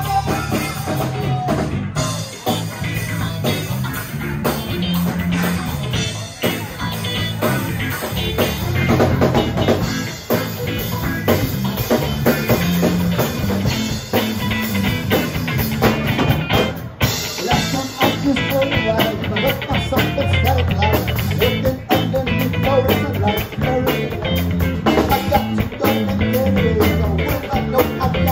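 Live rock band playing loud: electric guitar, five-string electric bass and drum kit, with a steady drum beat and a strong bass line.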